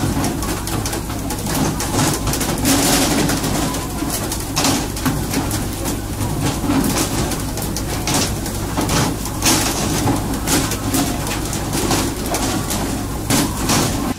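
Fishing boat's engine droning under rushing sea water, with frequent sharp slaps and splashes as tuna are jerked out of the water on poles and flung onto the deck.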